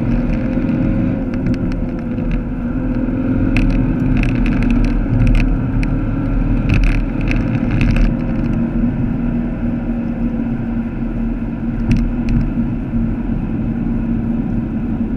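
Vauxhall Astra VXR's turbocharged 2.0-litre four-cylinder engine holding a steady note at speed, heard from inside the cabin along with road and wind rumble. Scattered sharp clicks or knocks come through in the middle, with one more near the end.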